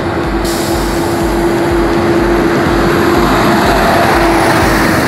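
Diesel engine of an International cargo truck running with a steady hum. It grows louder as the truck approaches and passes close by about four seconds in, then begins to fade.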